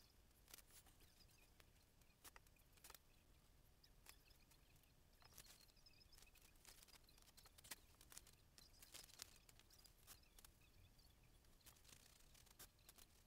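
Near silence, with faint, scattered light clicks and scrapes from paper and a small metal blade being handled on a painting panel.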